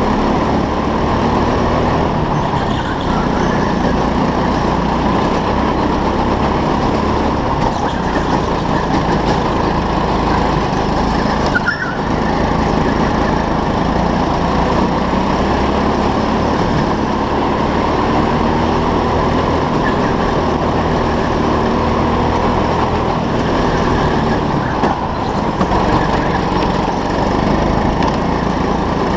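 Go-kart heard from onboard while lapping an indoor track at racing speed: a continuous, steady motor and drive noise with no let-up.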